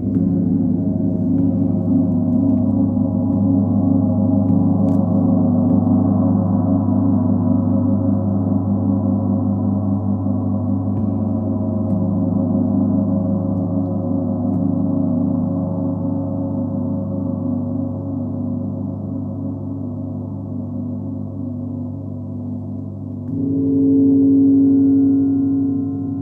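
Large Sun, Full Moon and Earth gongs played with mallets, sustaining a continuous, shimmering wash of many overlapping deep tones. Near the end a louder swell comes in, led by one strong tone.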